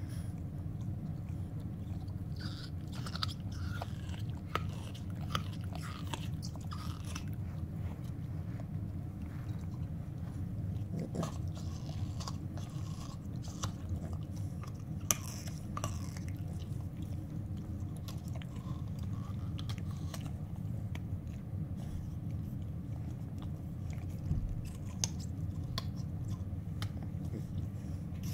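A Boston terrier and a boxer chewing on chew toys: irregular clicks, crunches and squeaks of teeth working the toys, over a steady low hum.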